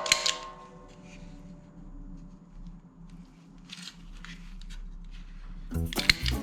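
Background music cuts out at the start, leaving faint scattered clicks and a short rustle a little before the four-second mark; music with a beat comes back in loudly near the end.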